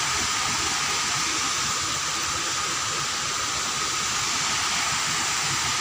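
Steady rush of water flowing through a concrete weir's sluice gates, an even hiss with a faint steady high tone running over it.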